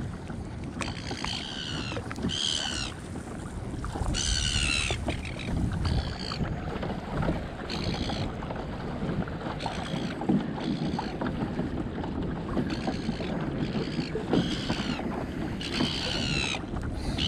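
Silver gulls calling again and again, a string of short harsh squawks that fall in pitch, about one a second, over a low rumble of wind on the microphone.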